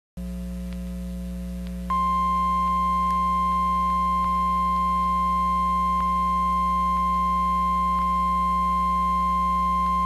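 NOAA Weather Radio warning alarm tone: a single steady high 1050 Hz tone comes in about two seconds in and holds unbroken, over a steady low hum from the receiver. The tone signals that an urgent warning, here a tornado warning, is about to be read.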